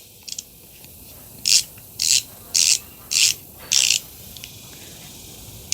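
Anex QuickBall 72 72-tooth ratcheting screwdriver ratcheting through five short strokes, roughly one every half second, each a brief fine rasping buzz.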